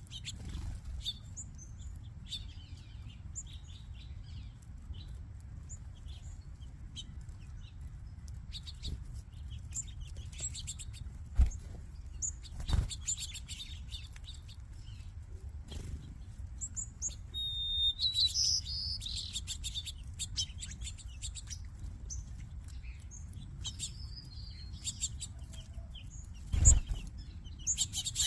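A mixed flock of small finches and sparrows chirping and twittering together, with short high chirps throughout and a louder burst of calls about two-thirds of the way through. A few sharp thumps stand out, two a little before halfway and the loudest near the end.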